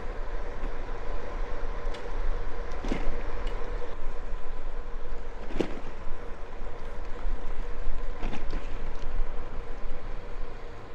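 Wind rushing over the microphone while riding a bicycle: a steady, loud rumble, with a few short knocks.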